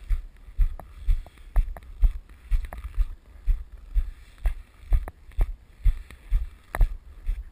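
Footsteps at a steady walking pace, about two steps a second, each a dull thump with a light click.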